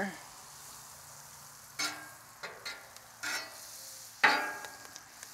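Butter sizzling on a Camp Chef flat-top griddle, with several short scrapes of a metal spatula across the steel surface as it spreads the melting butter, the loudest about four seconds in.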